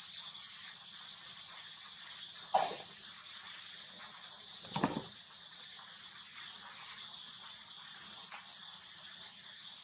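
A steady high hiss, with a sharp crackle about two and a half seconds in and a duller thump a couple of seconds later.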